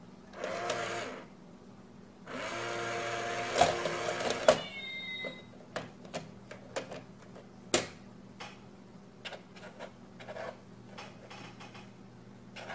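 Small motor of a battery-powered coin-grabbing box toy whirring as its lid opens, first briefly and then for about three seconds, followed by a short electronic chirp. Then scattered clicks and taps as the box is pawed and the lid snaps shut.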